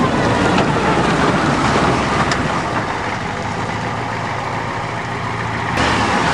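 Ford diesel truck engine running steadily at low speed as the truck backs down a hill in reverse, with a couple of light knocks. Near the end the sound suddenly gets louder and hissier.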